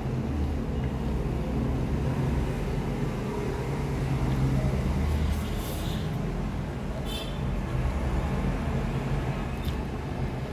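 Steady low background rumble, with a few brief, sharp eating sounds near the middle as a handful of rice is put into the mouth and chewed.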